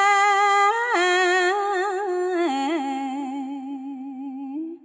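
A woman chanting smot, Khmer Buddhist verse recitation, unaccompanied. She draws one syllable out into a long melismatic note with ornamental turns, steps down in pitch about two and a half seconds in, and fades out just before the end.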